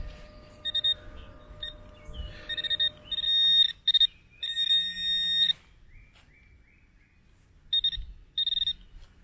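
Handheld metal-detecting pinpointer beeping in short, irregular bursts of a high electronic tone as it is probed through a dug soil plug. The beeps signal metal near its tip, here a small buried screw. They come in quick clusters for the first five seconds or so, then again briefly near the end.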